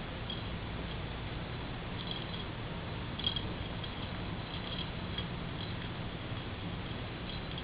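Faint, scattered little ticks and tinkles from a conure playing with a small cat toy, over a steady low hum.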